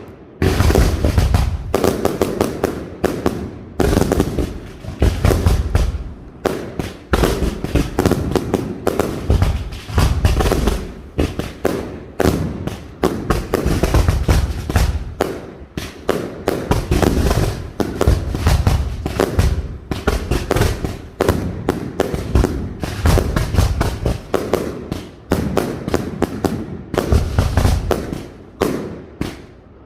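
Castillo aerial fireworks display by Pirotecnia Nadal-Martí, firing a rapid, unbroken string of sharp bangs, several a second, with deep booming shell bursts underneath.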